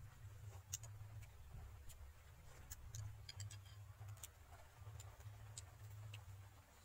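Faint eating sounds: a metal spoon clicking against a ceramic soup bowl and soft mouth clicks, scattered sharp ticks with a small cluster about three seconds in, over a low steady rumble.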